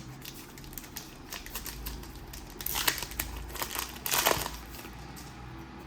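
Foil wrapper of a Pokémon card booster pack crinkling and rustling as it is handled and opened. There are louder crackling bursts about three and four seconds in.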